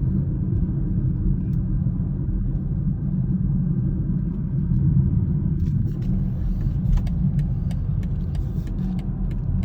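Steady low road and engine rumble of a car being driven, heard from inside the cabin, with faint light clicks in the second half.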